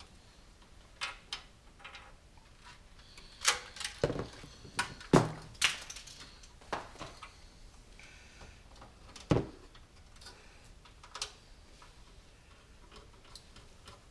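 Irregular clicks and knocks of computer hardware being handled and fitted inside a PC tower case, with a cluster of sharper knocks a few seconds in and another a little past the middle.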